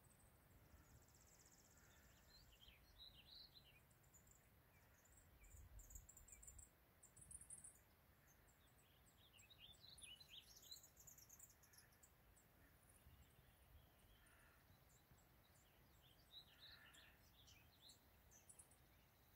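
Near silence with faint bird chirps in the open air, coming in short runs every few seconds.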